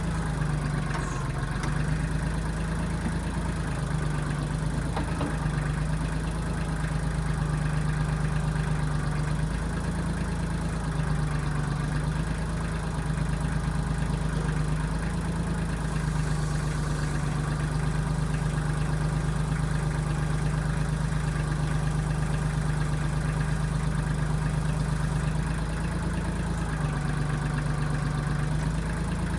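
Diesel engine of a 1995 Kubota backhoe running steadily, its low note dipping briefly and coming back several times as the load shifts.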